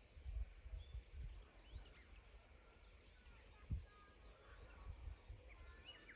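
Quiet outdoor ambience with faint, scattered bird chirps, thickening near the end, and a few low thumps, the loudest about half a second in and just before four seconds.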